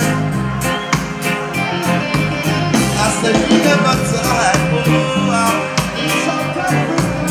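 Live reggae band playing: electric guitars, drum kit and keyboards keep a steady beat, with a male vocalist singing over it at times.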